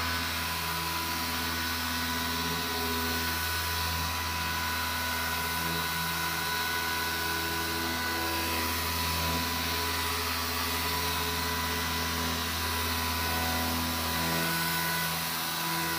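Machine orbital sander running steadily, damp-sanding orange-peel texture out of car paint: a steady whine over a rushing noise.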